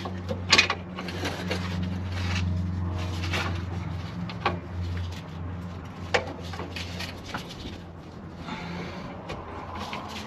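Metal clinks and scrapes of a pry bar and gloved hands working a van's driveshaft U-joint loose from the rear axle yoke, with a few sharp knocks about half a second, four and a half and six seconds in. A steady low hum runs underneath.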